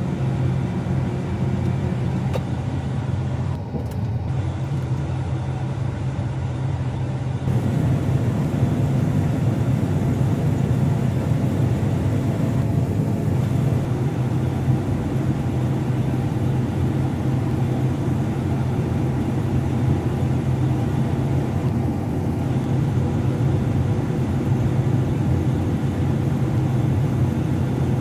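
Combine harvester running steadily as heard from the cab, a strong low engine hum under machinery noise; about seven and a half seconds in it grows louder and fuller and holds there.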